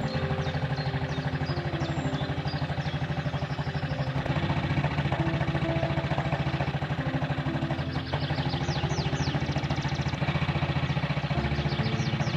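Restored 1963 Triumph Tiger Cub's 200cc single-cylinder four-stroke engine running steadily, its firing pulses even, with music over it.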